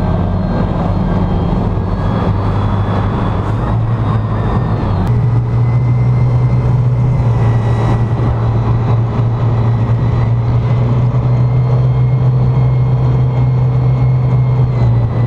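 Vintage speedboat's inboard engine running hard at speed. The engine note steps up about five seconds in and then holds steady, with wind and water rushing.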